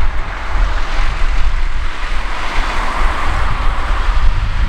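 Boeing 747-400 jet noise on the landing rollout, a steady rush that swells about halfway through and then eases, with wind rumbling on the microphone.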